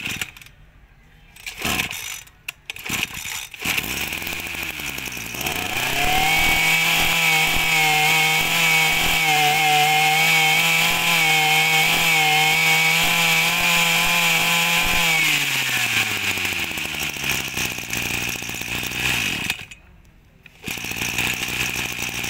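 Small two-stroke 23cc brush cutter engine being pull-started and revved. After a few pulls and clicks, it picks up and climbs to a steady high-speed run for about nine seconds, then drops back to idle. The sound briefly dips away near the end.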